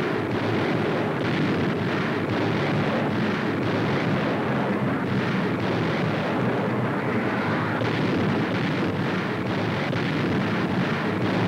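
Aerial bombing on an old newsreel soundtrack: a dense, steady rumbling roar of high-explosive bombs bursting, with no single blast standing out.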